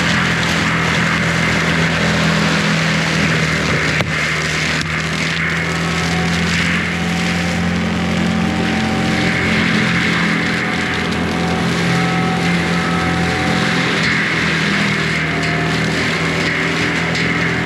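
Forestry mulching machine running steadily under load: the diesel engine holds a constant pitch while the spinning mulcher head grinds up brush and wood.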